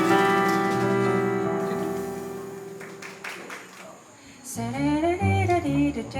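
A jazz band's final chord, led by the piano, rings out and fades away over about four seconds at the end of a ballad. Near the end, low double-bass notes and a gliding melodic line start a new phrase.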